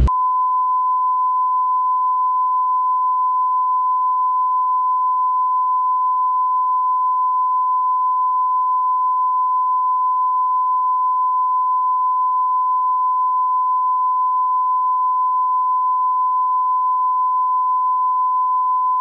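Censor bleep: one steady, unbroken pure tone laid over the soundtrack to blank out an inappropriate remark.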